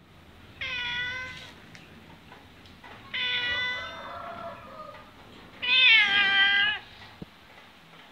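Adult male domestic cat meowing three times, each call about a second long and pitched, dropping slightly at the end; the third call is the loudest.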